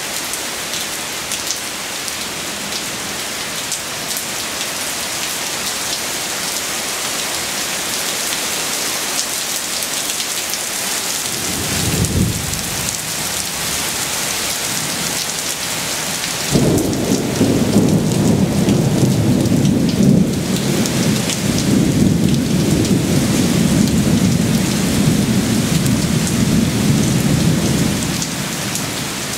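Heavy rain pouring down steadily, with a short rumble of thunder about twelve seconds in. A long roll of thunder starts suddenly just past the halfway point and dies away near the end.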